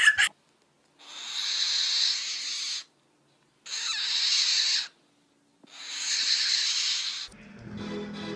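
An animal hissing three times, each a long breathy hiss of about a second and a half with short silent pauses between. Music begins near the end.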